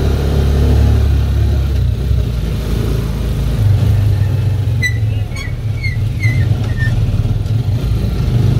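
Motorcycle-and-sidecar tricycle running steadily on the road, its small engine giving a continuous low rumble. Near the middle comes a run of about five short, high squeaks.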